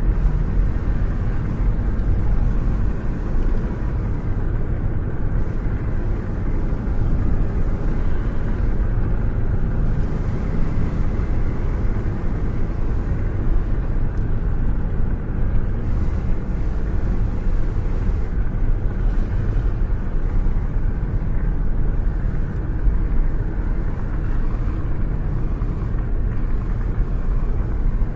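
A car cruising, heard from out of its open window: a steady rumble of road and wind noise that runs on without a break.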